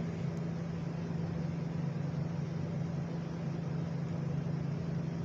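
A steady low machine-like hum with an even background hiss, unchanging throughout.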